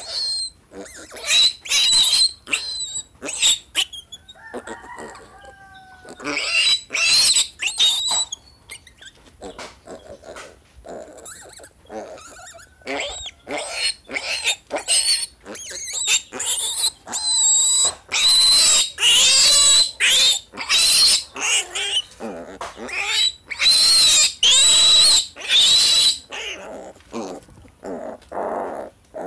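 A male piglet screaming in distress while it is held down and castrated with a blade. Short, high squeals come in quick succession, then long, almost unbroken screaming through the second half, thinning to a few short squeals near the end.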